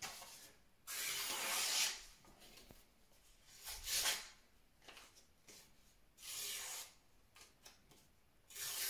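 A freshly sharpened bunka knife, reground from a Masahiro MV chef knife, slicing through something in four separate hissing strokes; the longest is about a second in. The blade is sharp enough that it cuts without resistance.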